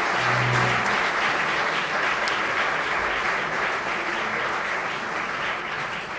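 Audience applauding, slowly dying down toward the end.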